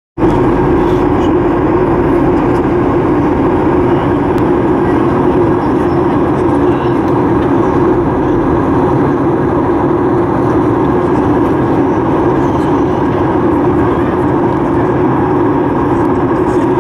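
Steady cabin noise of an airliner in flight: engine and airflow noise heard from inside the cabin.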